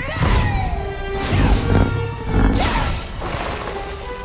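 Lightsabers swinging and clashing, with several loud strikes and sweeping whooshes in the first three seconds, over orchestral film score.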